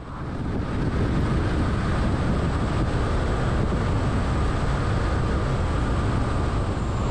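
Steady road noise of a vehicle driving at highway speed on paved road: a rumble of tyres and wind that swells over the first second and then holds even, with a faint steady whine above it.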